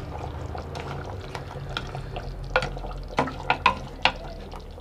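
Wet liquid sounds from a thick crab curry in a clay handi, over a low steady hum. Partway through come a handful of short sharp clicks or pops.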